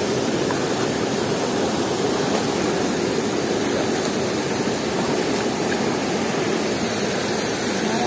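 Waterfall water rushing steadily: a loud, even noise with no breaks.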